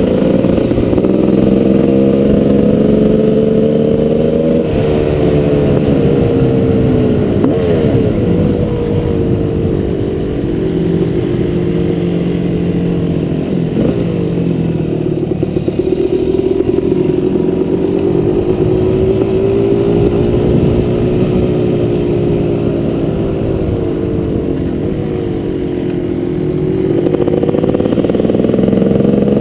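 Dirt bike engine, the GasGas 300, running under way. Its pitch rises and falls over and over as the throttle is opened and closed, with quick swoops about 5, 7 and 14 seconds in and a climb near the end.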